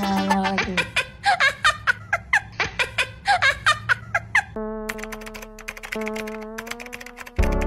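Meme soundtrack: a pitched tune gives way to a run of short, high, chirpy vocal-like sounds, about four a second. About four and a half seconds in it switches to a steady held tone under rapid keyboard typing clicks.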